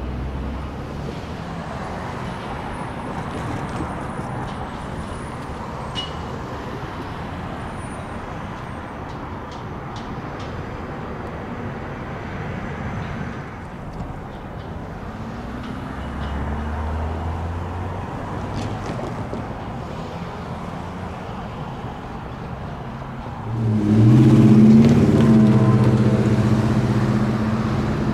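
Steady rumble of a passing freight train mixed with road traffic. About 24 seconds in, a loud low pitched sound with several tones from an approaching train starts suddenly and holds to the end.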